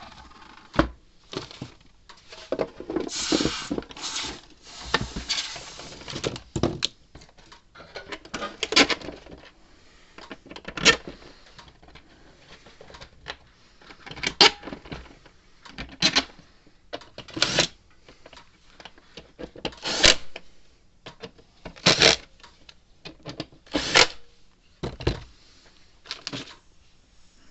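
Irregular clatter and knocks of small hard objects being handled, with a stretch of scraping and rustling a few seconds in.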